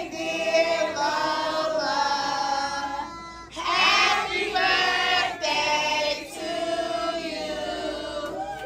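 A group of people singing a song together, holding each note.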